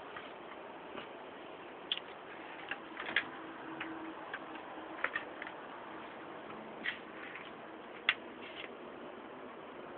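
Small birds giving scattered short, high chirps at irregular intervals over a steady background hiss.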